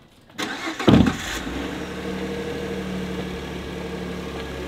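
Boat's outboard motor starting: a burst of noise about half a second in, a brief flare that falls away around one second, then settling into a steady idle.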